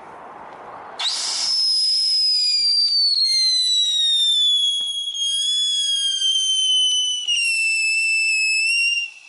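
Whistling fountain firework: the lit fuse hisses, then about a second in a loud, high whistle starts abruptly. The whistle slowly falls in pitch for about eight seconds, breaks briefly twice, and cuts off near the end.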